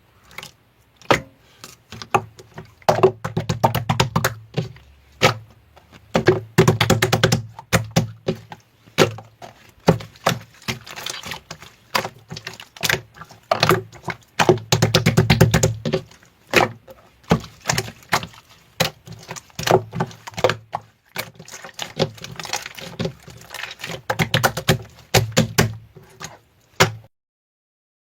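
Hands squishing and poking slime: dense runs of wet clicks and small popping crackles in bursts a second or two long with short pauses between, stopping suddenly near the end.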